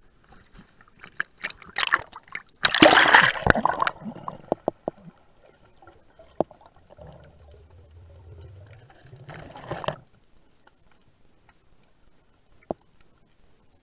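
Seawater splashing and sloshing around an action camera at the surface as a snorkeller goes under, loudest about three seconds in. Then comes the muffled quiet underwater, with a low hum, a short rush of water noise near ten seconds, and one sharp click later.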